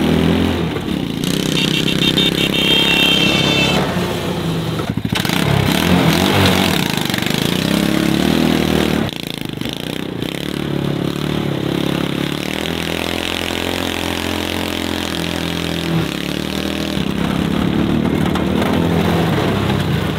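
Small gasoline engine of a mini Jeep running off-road over grass and mud, revving up and down over and over as the throttle changes.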